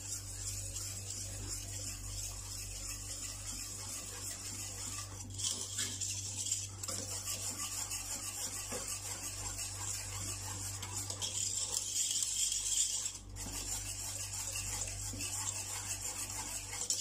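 A spatula scraping steadily around the bottom of a pot of thick batter, stirred without pause so the mixture doesn't go lumpy. The scraping dips briefly twice, about five and thirteen seconds in.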